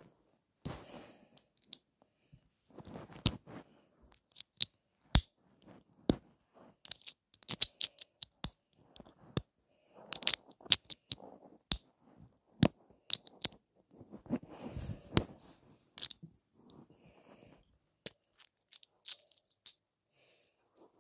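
Irregular sharp clicks and snaps mixed with short bursts of crunching, at an uneven pace; they thin out to a few faint clicks near the end.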